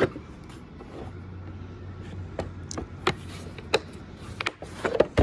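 Hard plastic torque wrench cases knocking and clacking against each other as they are shifted in a tool box drawer: a scattering of sharp clacks, with a cluster near the end, over a low steady hum.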